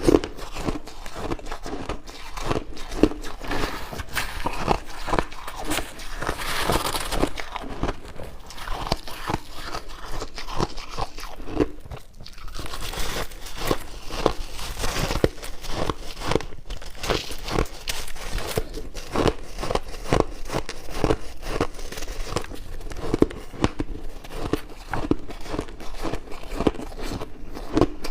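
Chunks of shaved ice being bitten and chewed: a dense, continuous run of crunching.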